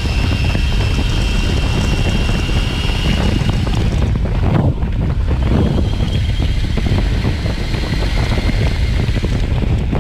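CYC X1 Pro mid-drive e-bike motor whining under heavy throttle at about 40 mph, with wind rushing over the microphone. About four seconds in the power is cut and the whine drops back, then fades and falls in pitch as the bike coasts.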